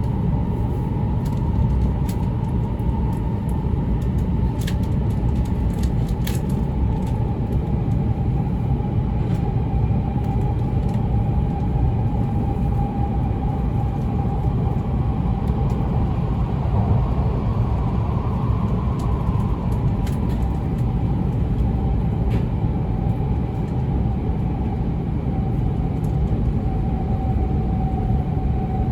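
E2 series Shinkansen train running, heard from inside the passenger cabin: a steady deep rumble with a steady whine that rises a little in pitch midway, and a few faint clicks.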